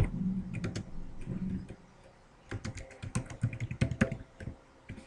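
Computer keyboard typing: keystrokes in short irregular bursts with brief pauses between them.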